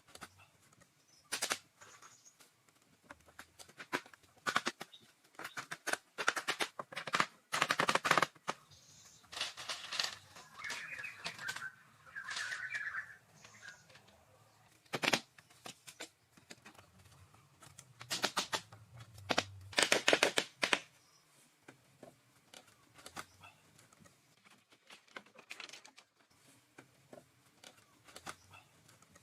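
Irregular scrapes, rustles and knocks of hand work with natural building materials, coming in uneven clusters with quieter gaps between.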